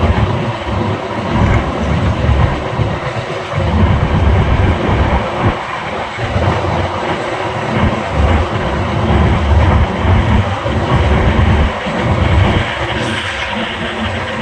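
Express passenger train running on the rails: a steady rumble with the clatter of wheels over the track.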